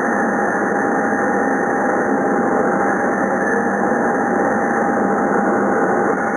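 Amada FO-3015 laser cutting machine running: a steady mechanical rush of noise with a thin, even whine held through it.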